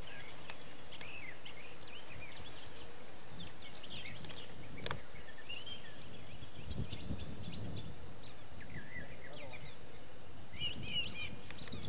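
Birds chirping and calling all through, short scattered chirps over a steady outdoor hiss, with a single sharp click about five seconds in and a brief low rumble a little later.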